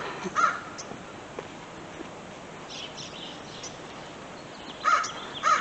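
American crows cawing: two caws at the start and two more near the end, short and harsh, with fainter high chirps from smaller birds in between.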